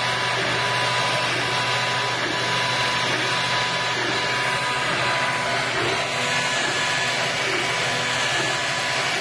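MakerBot Replicator 2 desktop 3D printer running a print: a steady fan hiss under the whine of its stepper motors, with a low pattern that repeats about every half second as the extruder carriage shuttles back and forth.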